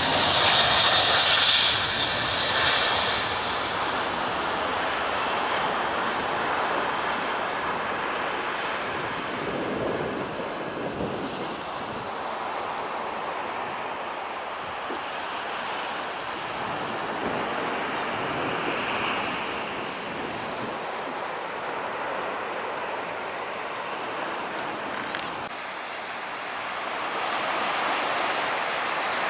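Aircraft noise fading away over the first couple of seconds, leaving a steady wash of surf with some wind on the microphone.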